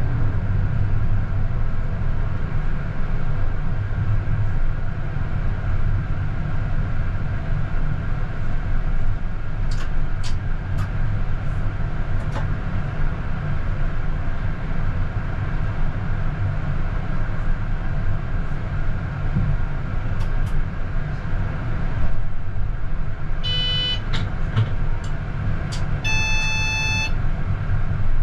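CAF Urbos 100 (GVB 15G) tram pulling away and running on its track, heard from the driver's cab as a steady low rumble of motors and wheels on rail, with a few sharp clicks. Near the end come a short electronic beep and then a louder steady tone about a second long.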